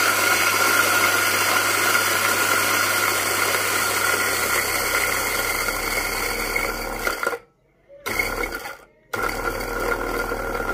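Electric coffee grinder running steadily as it grinds coffee at a coarse setting into a small filter basket. It cuts out twice briefly, about seven and nine seconds in, and starts again each time.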